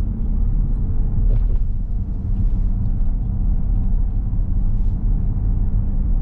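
Dodge Durango R/T's 5.7-litre HEMI V8 and road noise in a steady low rumble while cruising, with no revving.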